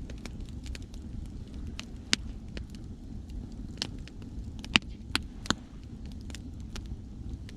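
Wood fire crackling: irregular sharp pops and snaps, the loudest about two seconds in and a cluster between about four and a half and five and a half seconds, over a steady low rumble of sea waves.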